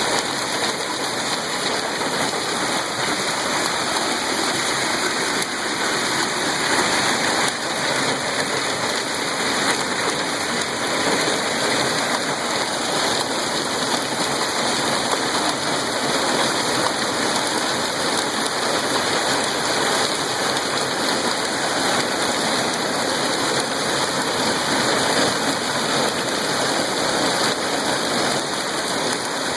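Heavy storm rain falling steadily: an even, unbroken rushing hiss.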